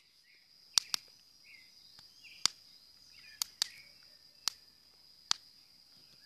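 Dry spiny conifer branches crackling as a match flame catches them: about seven sharp snaps at irregular intervals. A steady high insect drone runs behind.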